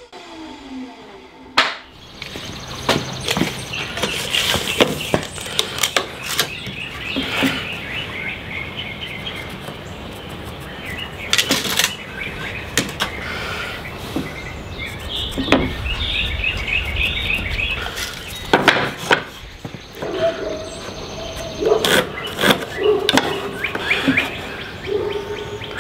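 Scattered sharp knocks and clatter of pine 2x3 boards being handled and laid on a table saw's metal top while they are measured and marked. Small songbirds chirp in the background in two stretches.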